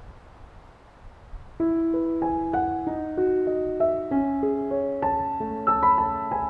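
Wind rushing, then calm solo classical piano music starts suddenly about one and a half seconds in, single notes and chords held and overlapping.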